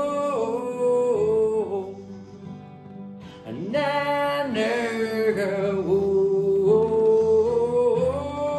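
A man singing over two acoustic guitars played together. The voice holds long notes, drops away for about a second a couple of seconds in, then comes back with an upward slide.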